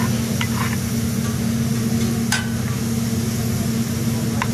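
Steady low machine hum with a faint sizzle from the teppanyaki griddle, cut by three sharp metal clicks, the loudest about halfway through.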